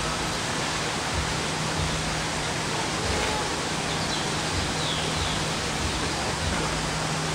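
Steady rushing background noise with a low steady hum beneath it and faint low thumps.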